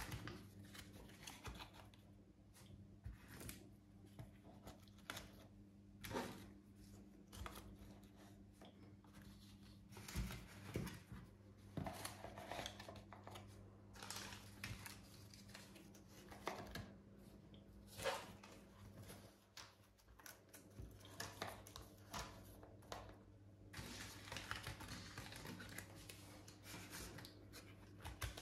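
Small plastic zip-lock bags of modelling clay rustling and crinkling as they are handled and packed into a cardboard box, in faint irregular bursts with light taps. A faint steady hum runs underneath.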